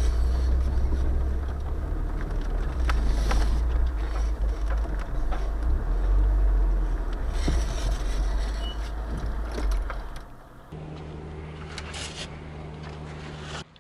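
Car driving slowly over a bumpy dirt track, heard from inside: a steady low engine and road rumble with scattered knocks and rattles from the bumps. About eleven seconds in it cuts off abruptly and gives way to a quieter steady hum.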